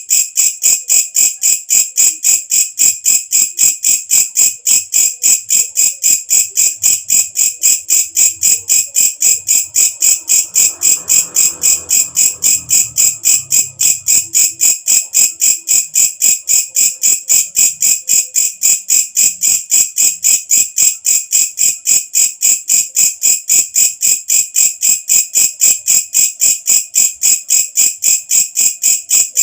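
A walang kecek katydid calling: a steady, rapid train of shrill, high-pitched pulses, about three to four a second, unbroken throughout.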